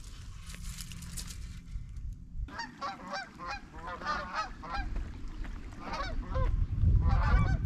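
A flock of geese flying overhead in a V formation, many birds honking over one another, starting about two and a half seconds in. Before that there is only faint crackling and clicking. A low rumble swells under the honking near the end.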